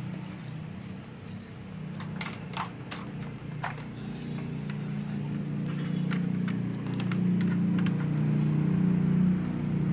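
A low engine hum, growing louder through the second half, with scattered small clicks and taps.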